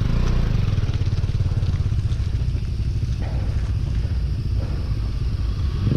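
Motorcycle engine running steadily at low revs, a fast even pulsing rumble.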